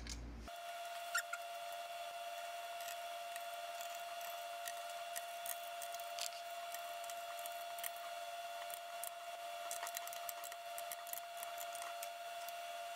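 Sped-up sound of hands assembling a plastic printer base plate: quick scattered clicks and taps of small screws and parts over a steady high-pitched hum. It starts and stops abruptly.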